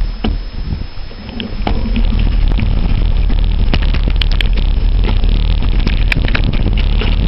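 Wind buffeting the microphone of a camera on a mountain bike riding a rough trail, with a steady low rumble and many rattling clicks and knocks from the bike. It gets louder and steadier about two seconds in.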